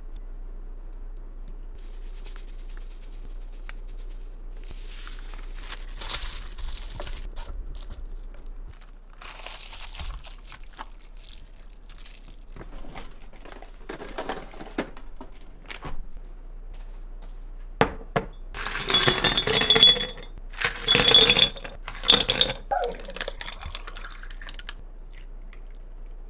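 Dishes and utensils clattering and clinking as they are handled, with a cluster of louder bursts about two-thirds of the way through.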